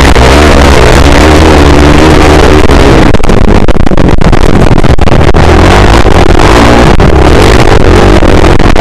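Motocross bike engine heard close up from an onboard camera, revving up and down with the throttle for the first few seconds, then rougher, with rapid jolts as the bike runs over bumps. It is loud enough to push the recording to its limit.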